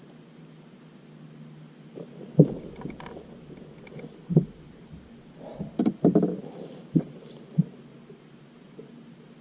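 Knocks and thumps of handling on a fishing boat. There are single knocks about two and a half and four and a half seconds in, a cluster with some scraping around six seconds, and two more knocks near seven and seven and a half seconds.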